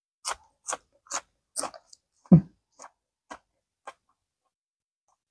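Close-up crunching of a raw green onion stalk being bitten and chewed, crisp crunches about two a second, with a louder low thump a little past two seconds in, then a few fainter chews.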